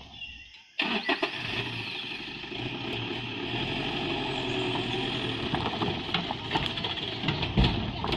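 Pickup truck engine running under load as the truck climbs over a fallen tree trunk on a dirt road. The engine starts suddenly about a second in, and there is a heavy thump near the end.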